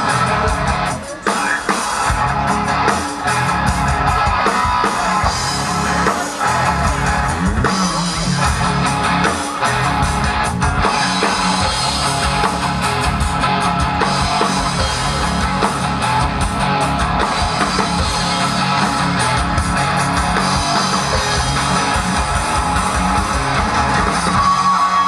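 Live rock band playing: electric guitar and a drum kit, loud and steady throughout.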